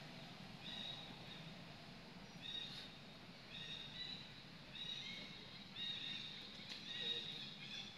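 High-pitched animal calls: short, flat, whistle-like notes of about half a second each, repeated roughly once a second. A few faint clicks come in between.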